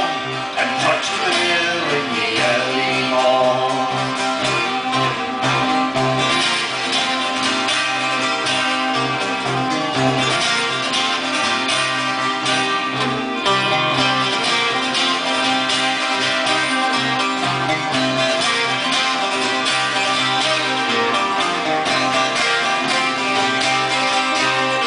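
Live folk band playing an instrumental passage: strummed acoustic guitars and a plucked round-backed string instrument keep a steady rhythm under a bowed fiddle.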